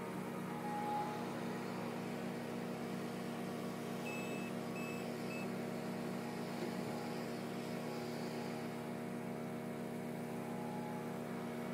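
Steady engine drone from a portable generator and a New Holland skid-steer loader working in a compost yard. About four seconds in come three short high beeps as the loader backs away.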